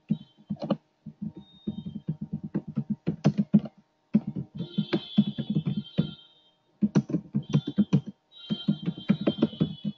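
Fast typing on a computer keyboard: rapid keystroke clicks in bursts, with short pauses between words.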